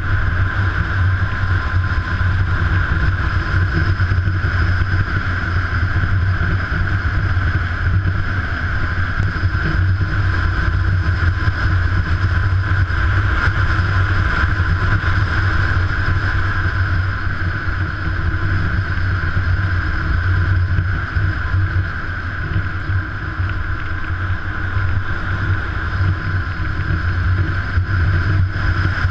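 Kawasaki KLR650 dual-sport motorcycle's single-cylinder engine running steadily at cruising speed, with wind noise over the microphone.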